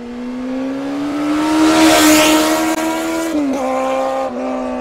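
High-revving racing engine held at a steady, slowly climbing pitch, with a rushing whoosh that swells to a peak about two seconds in. The pitch drops abruptly twice near the end, as in quick gear changes.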